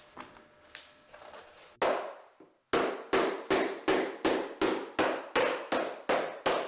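Shoemaker's hammer beating a leather sole on a boot held on the lap. After faint handling taps comes a single sharp blow about two seconds in, then a fast, even run of blows about four a second.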